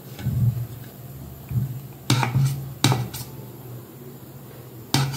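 Metal ladle scooping thick idli batter and knocking against a steel vessel and a metal idli plate while pouring the batter into the plate's cups. There are soft thumps near the start, then a few sharp metal clinks about two, three and five seconds in.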